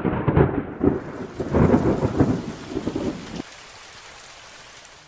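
Thunder rumbling over steady rain. The rumble stops abruptly about three and a half seconds in, leaving only the hiss of the rain.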